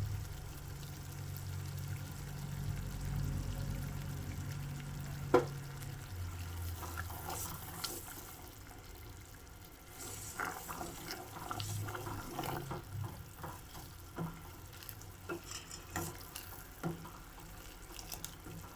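Sugar syrup in a pan on the stove being stirred with a spoon: liquid sloshing, with scattered clinks and scrapes of the spoon against the pan. A low hum stops about six seconds in.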